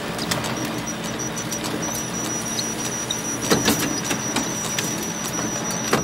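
Photocopier running: a steady mechanical hum and a high whine, with a string of irregular clicks and clacks. Two louder clacks come about three and a half seconds in.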